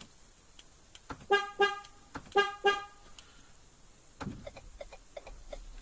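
Two pairs of short beeps as the remote starter is triggered, followed about a second and a half later by a knock and a run of small clicks. A low rumble then begins near the end as the Ford Fusion starts up.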